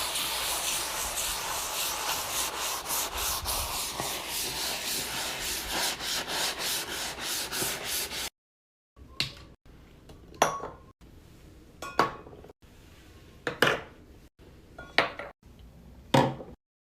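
Back-and-forth scrubbing of a surface during cleaning, steady and rhythmic for about eight seconds. After a short break come five separate sharp swipes, about a second and a half apart.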